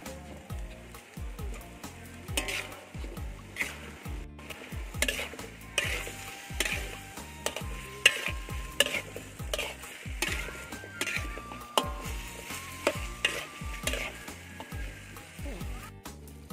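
Sliced pumpkin and minced pork being stir-fried in a wide metal wok. A spatula scrapes and clinks against the pan about once or twice a second over a steady sizzle.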